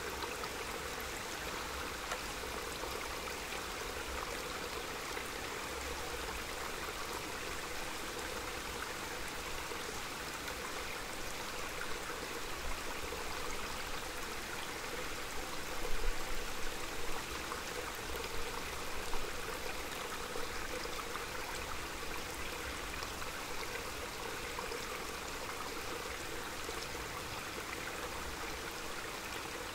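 Small mountain stream flowing steadily with an even, unbroken rush of water. A few brief low rumbles come about halfway through.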